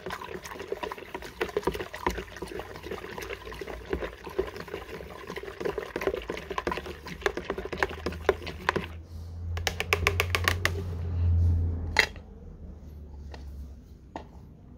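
Powdered sulfur being dissolved in water by brisk stirring in a plastic bucket: rapid clicking and scraping of the stirrer against the bucket wall with liquid swishing. Around ten seconds in there is a quick run of taps, and a single sharp knock follows about twelve seconds in.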